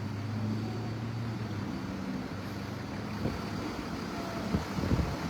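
Wind buffeting the microphone in uneven low gusts that grow stronger after a few seconds. A steady low hum, like a running vehicle, is there in the first couple of seconds.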